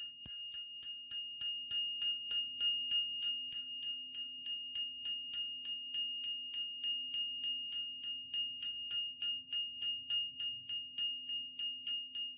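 Pooja hand bell rung steadily for an aarti, about four strokes a second, each stroke a bright metallic ring.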